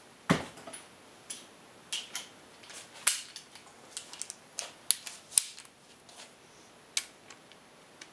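Irregular sharp metallic clicks and clinks of hand tools being handled, about a dozen over several seconds, as a click-type torque wrench is readied for an MGB engine's connecting-rod cap bolts.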